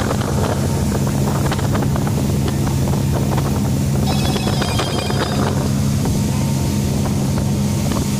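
Boat engine running at a steady speed, a constant low hum, with wind buffeting the microphone and water rushing past the hull.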